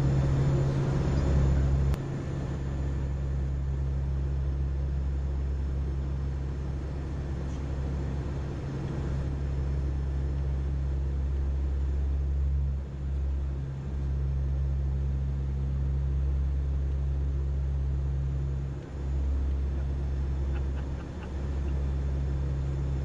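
Steady low drone of a four-engine turboprop hurricane-hunter aircraft, heard from inside the cockpit, dipping briefly in level a few times.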